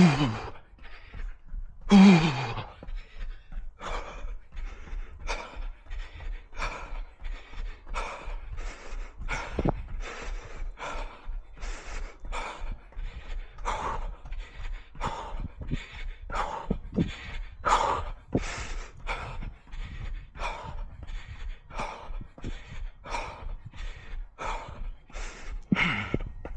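A runner's heavy, rhythmic panting, about two to three breaths a second. Right at the start and again about two seconds in come louder voiced exhales that fall in pitch.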